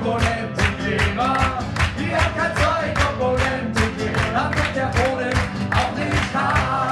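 Acoustic guitar strummed in a steady rhythm, with a voice singing a melody over it.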